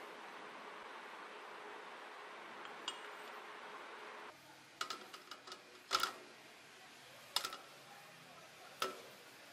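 A power tool runs steadily, then cuts off about four seconds in. Several sharp metallic clinks and clanks follow as metal tools or workpieces are handled and set down.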